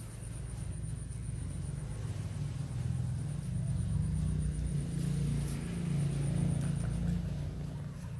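Low rumble of a distant engine, swelling from about three seconds in and easing off near the end.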